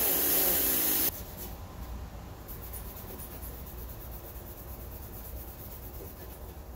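Hand scuffing of the Hijet's painted steel door skin: a soft, steady rubbing hiss with faint irregular strokes, the paint being scuffed in preparation for repainting. For about the first second a louder hissing noise runs before cutting off abruptly.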